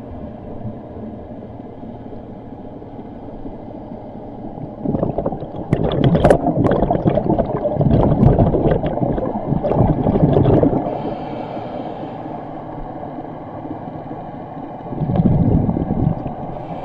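Scuba diver's regulator exhaust bubbles heard underwater: about five seconds in, a loud rush of bubbles with crackling pops lasting several seconds, and a shorter rush near the end. Under them runs a steady low hum.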